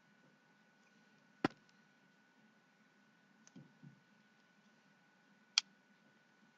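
Two sharp clicks about four seconds apart, with two soft low knocks between them, from handling a fidget spinner that has gone bad after being dropped in soup.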